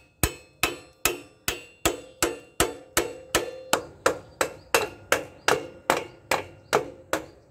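Steady hammer blows on a Bajaj Pulsar's swing arm pivot axle, about three a second, each with a short metallic ring, driving the axle through the swing arm bushes until it comes out the far side.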